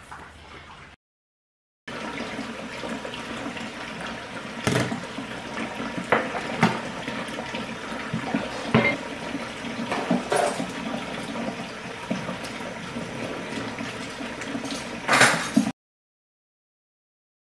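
Water running from a kitchen tap into a stainless steel sink while dishes and plastic containers are handled, with scattered clinks and knocks and a louder clatter near the end before the sound cuts off.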